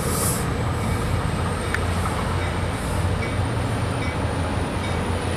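Tri-Rail commuter train rolling slowly past along the platform, a steady low rumble of engine and wheels.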